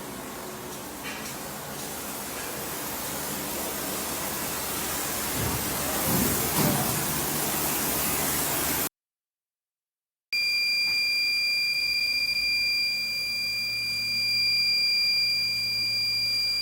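A steady rush of air, like a blower or fan moving air through HVAC equipment, growing louder. After a sudden cut, a steady high-pitched electronic whine of two tones sounds over a faint low hum.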